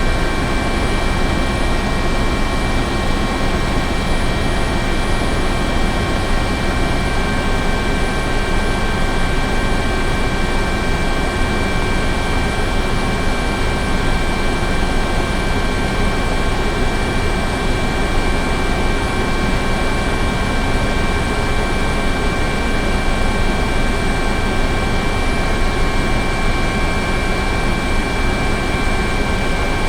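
Helicopter running steadily: a constant rush of engine and rotor noise with several steady high-pitched turbine whines, neither passing by nor changing in level.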